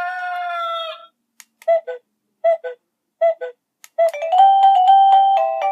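TeckNet WA888 wireless doorbell chime playing its ringtones through its small speaker. A rooster-crow tone ends about a second in, then three quick two-note ding-dongs, then a stepping electronic melody starts about four seconds in.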